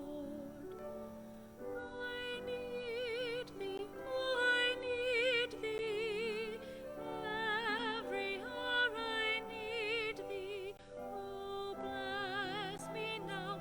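Slow, classical-style music: a solo melody of long held notes with wide vibrato over sustained lower accompaniment.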